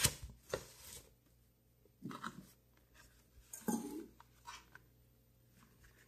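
A cardboard box and a printed paper sheet being handled on a table: a few short, irregular rustles, scrapes and knocks, the loudest right at the start.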